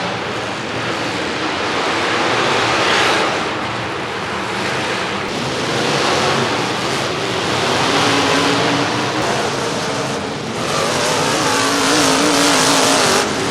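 Demolition derby cars' engines running hard at high revs, a dense steady wash of engine noise, with one engine's pitch wavering up and down in the last few seconds.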